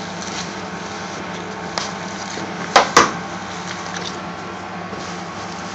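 Metal spoon mixing raw lamb mince and spices in a bowl, with two sharp knocks in quick succession about three seconds in, over a steady background hum.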